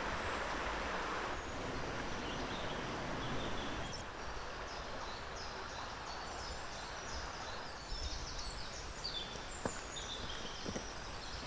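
Wild birds giving many short, high chirps and calls over a steady outdoor noise haze, with the calls growing busier from about two seconds in.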